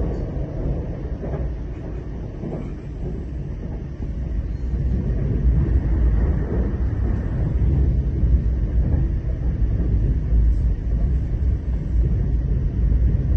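Passenger train running, heard from inside the carriage: a steady low rumble that grows louder about four seconds in.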